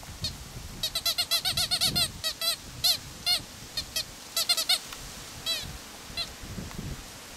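Squeaky dog toy squeezed in quick runs: a rapid series of short, high squeaks, thick for the first couple of seconds, then in sparser clusters that stop about six seconds in.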